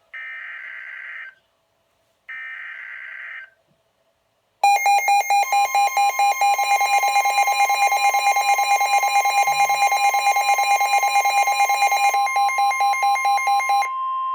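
Two harsh one-second digital screeches of an Emergency Alert System SAME header from a NOAA Weather Radio broadcast. Then a weather alert radio's alarm beeps rapidly, about four beeps a second, over the steady NOAA Weather Radio warning alarm tone, marking an incoming warning. The beeping stops shortly before the steady tone ends.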